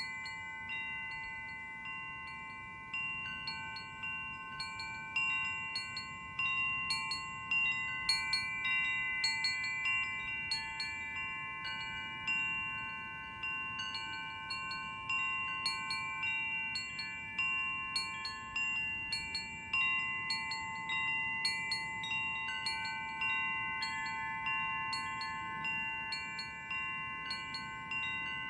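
Wind chimes ringing, their tuned tubes struck irregularly and often, several clear notes overlapping and ringing on between strikes.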